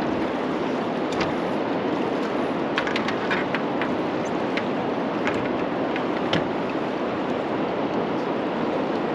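Steady rushing of fast-moving river water, with a scatter of small sharp clicks and ticks through the middle.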